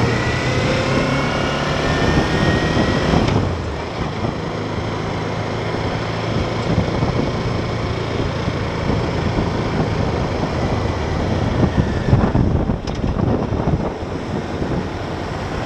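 Motorcycle engine pulling away, its pitch rising slowly for the first few seconds, then cutting abruptly to steady riding with the engine drone under heavy wind and road noise.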